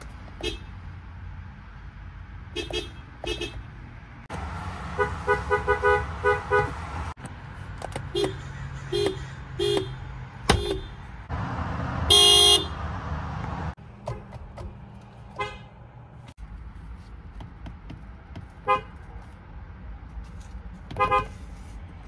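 Toyota car horns honking in a series of short toots and beeps from several different cars. One quick run of rapid toots comes about five seconds in, and the loudest, brightest blast comes about twelve seconds in.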